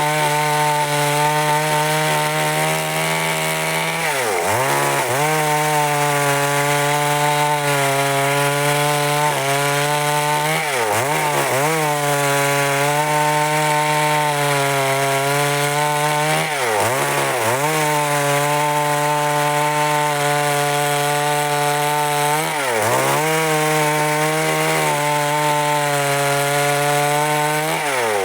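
Stihl MS382 two-stroke chainsaw cutting through wood at high revs. The engine pitch briefly drops and climbs back about six times as the saw is loaded and eased off.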